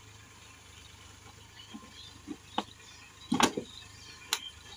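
Plastic screw lid being fitted onto a clear plastic jar: a handful of short plastic clicks and knocks, the loudest cluster about three and a half seconds in.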